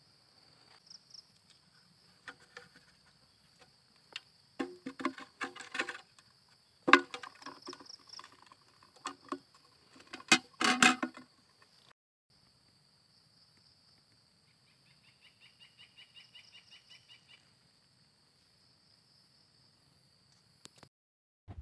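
A steady high-pitched insect drone, with a burst of knocks, clicks and rattles from handling a clear plastic box between about four and eleven seconds; these knocks are the loudest sounds. Later a short pulsed chirping of about a dozen notes.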